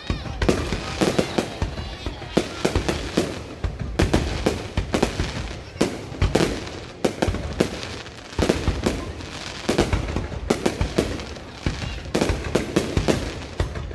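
Fireworks going off in a dense, unbroken barrage, sharp bangs coming several to a second.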